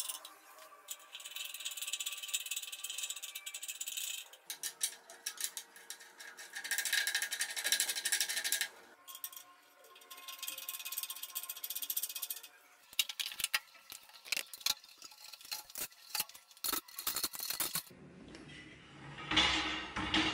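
Metal frame of a foldable table rattling and scraping as its legs are pulled out and unfolded, with a run of clicks and a heavier thud near the end as the table is set upright.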